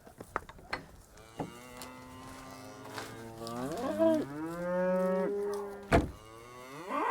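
Highland cattle mooing: one long moo that rises in pitch, then a sharp knock, and a second moo beginning near the end. The cows are clamouring over salt put out at feeding time.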